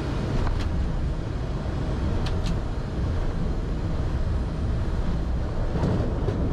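ATR 72 turboprop cockpit noise during landing: a steady rumble and hiss of engines and airflow as the aircraft comes onto the runway, with a few short clicks about half a second and two and a half seconds in.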